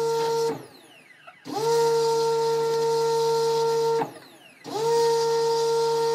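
Pressure washer spraying: a steady pitched hum with the hiss of the water jet, blasting hardened investment out of a casting flask. It cuts out twice, about half a second in and about four seconds in, and each restart rises briefly in pitch as it spins back up.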